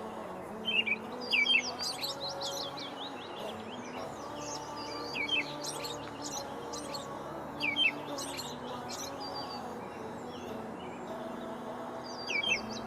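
Small birds chirping in quick, high, sliding notes that come in clusters: about a second in, again from about five to eight seconds, and near the end. A steady low drone of held tones runs underneath.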